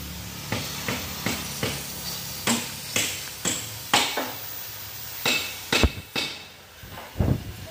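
About a dozen sharp metallic knocks at an uneven pace, roughly two a second with short pauses, over the faint steady hiss of an oxy-fuel cutting torch cutting a steel truck frame rail.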